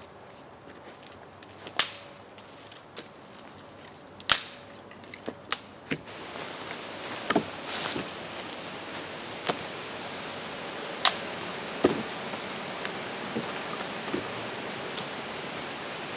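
Dry deadfall logs knocking against each other as they are set crosswise onto a log seat frame: a dozen or so sharp, irregular wooden knocks and clunks. A steady hiss rises about six seconds in.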